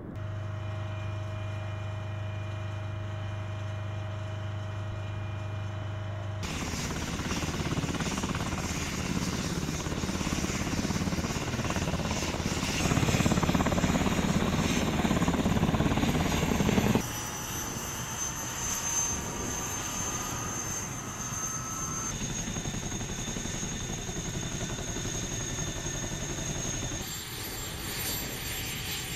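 Army helicopters heard across several short takes. The loudest part is a CH-47 Chinook's tandem rotors beating as it flies with a water bucket slung beneath, cutting off sharply about two-thirds of the way in. After that comes quieter helicopter turbine whine with steady high tones as rotors turn close by.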